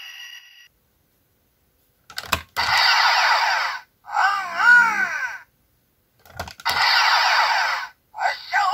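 A short electronic sound sequence played twice: a click, about a second of hissing, rushing engine-like noise, then a warbling call that bends up and down in pitch.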